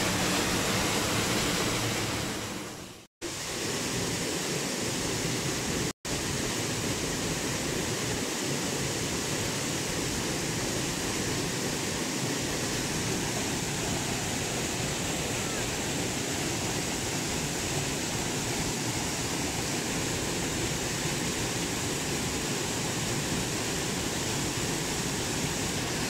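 Waterfall pouring into a plunge pool, a steady, dense rush of falling water heard close by. It cuts out for a moment twice, about three and six seconds in.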